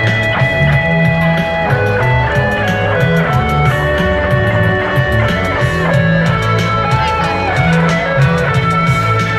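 Music with guitar lead over bass and a steady beat.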